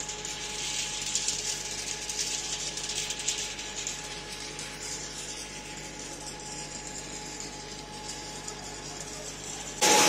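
Wood chipping and pellet-making machinery running steadily, heard from a distance: a constant hum with a faint steady whine and a fine high crackle. Just before the end it cuts sharply to the same machinery much louder and close.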